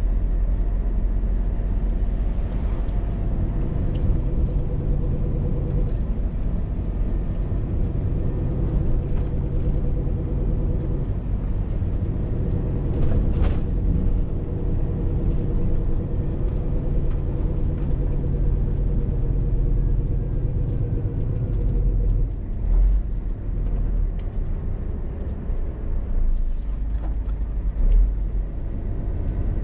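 Scania R450 lorry's 13-litre six-cylinder diesel running under way, a steady low drone with road rumble. A few short bumps come in the last third.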